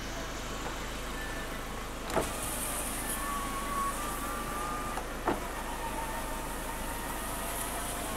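Ford Transit electric door window: a switch click about two seconds in, then the window motor whines steadily for about three seconds as the glass moves, stopping with a second click.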